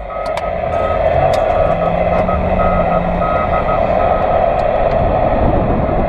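Radio receiver hissing with steady static, a faint tone beeping on and off through it, over the low hum of a vehicle driving.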